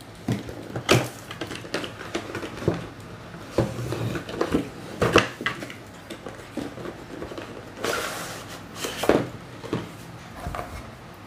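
A cardboard product box being opened by hand: the seal sticker is peeled off, the lid is lifted and the packaging handled, giving scattered short rustles, scrapes and taps, a few of them louder.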